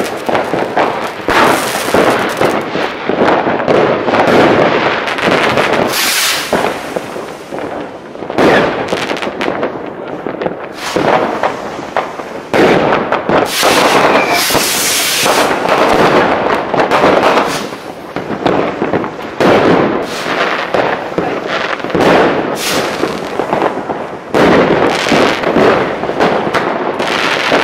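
Fireworks going off in a constant barrage: rockets and firecrackers bursting over one another, a dense mix of bangs and crackling with no pause.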